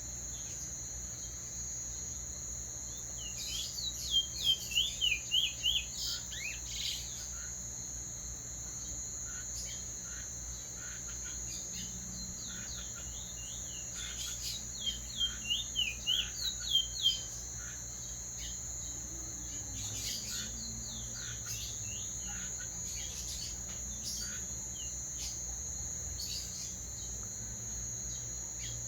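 A songbird sings twice, once about four seconds in and again about fifteen seconds in. Each time it gives a quick series of repeated down-slurred notes lasting about three seconds, with fainter chirps in between. A steady high-pitched drone runs underneath.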